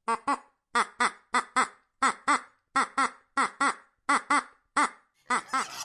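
An animal giving short, pitched calls in quick pairs, each call dropping in pitch, repeated about eight or nine times.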